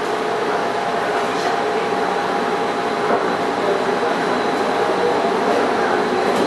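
Rubber-tyred Wenhu Line automated metro train pulling away from the station, heard from inside the car: a steady electric hum over the rolling noise as it gathers speed.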